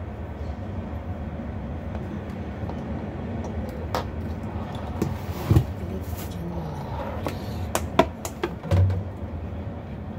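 Plastic clicks and knocks from handling a small clip-on fan and its spring clamp, a few sharp ones about halfway and near the end, over a steady low hum.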